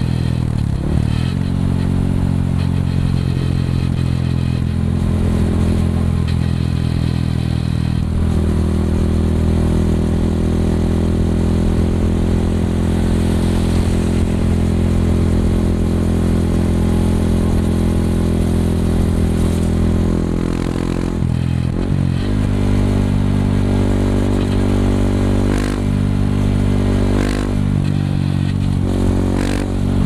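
Yamaha WR155R's 155 cc single-cylinder four-stroke engine running through a Norifumi Rocket 4 aftermarket exhaust while riding. The engine note shifts about eight seconds in and again around twenty-one seconds, with a few short breaks in the note in the last few seconds.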